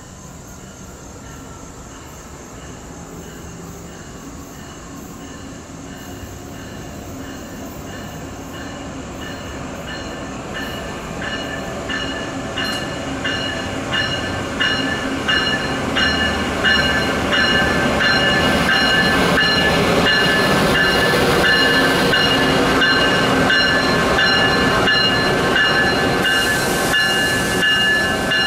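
Amtrak passenger train led by a Siemens ACS-64 electric locomotive approaching and passing: a rumble and a high steady whine grow louder through the first half, then hold at full level as the passenger cars roll by. From about a third of the way in, the wheels click over rail joints in a regular rhythm.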